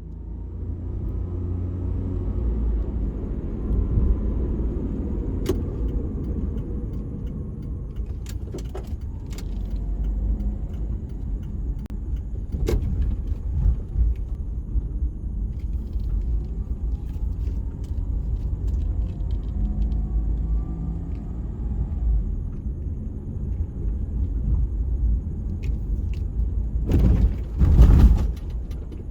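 A car on the move: a steady low rumble of engine and road noise, with a few sharp clicks scattered through it and a louder burst of noise near the end.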